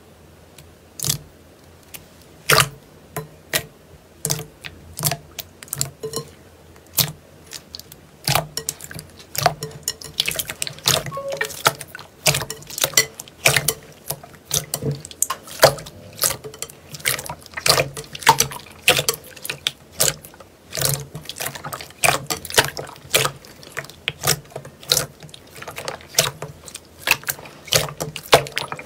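Slime being squeezed and worked by hand, giving irregular wet clicks and pops that come much thicker from about ten seconds in.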